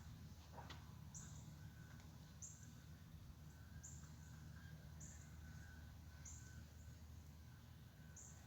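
Faint bird chirping: a short, very high note repeated about once every second, over a low steady background hum.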